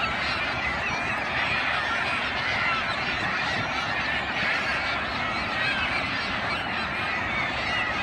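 Dense chorus of a large flock of waterbirds, mostly gulls, calling at once: many short overlapping calls with no pauses, at a steady level.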